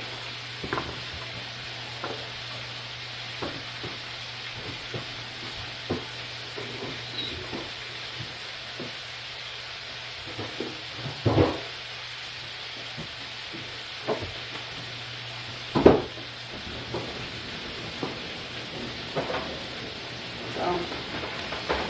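Hamburger patties sizzling in a frying pan, a steady frying hiss, with a low hum under it and a few scattered knocks and clicks, the loudest about eleven and sixteen seconds in.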